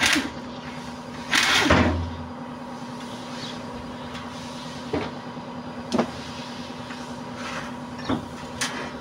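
A pneumatic wrench runs briefly about a second and a half in, spinning out a bolt on an automatic transmission's oil pump. A few sharp metal clinks follow later as the bolts and pump parts are handled, over a steady hum.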